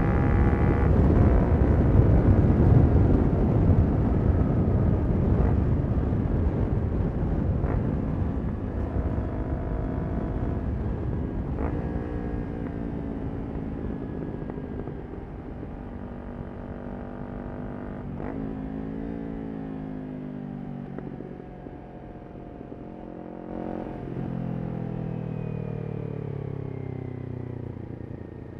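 Kawasaki Ninja 400's parallel-twin engine through a Yoshimura exhaust, heard from on the bike. Wind rush and engine are loud at first and then fade as the bike slows. There are a few sharp cracks from the exhaust on the overrun, and the engine note drops and rises with the gear changes later on.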